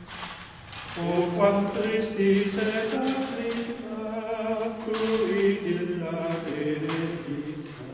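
Choral chant music: voices singing slow, held notes that change pitch every second or so, resuming about a second in after a brief lull.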